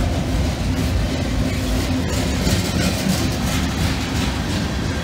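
Freight train cars rolling past: boxcars and covered hoppers going by on steel wheels, a steady, unbroken rail noise.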